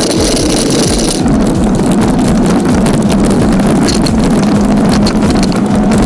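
Wind buffeting the microphone with steady rumble while riding a homemade cargo bicycle.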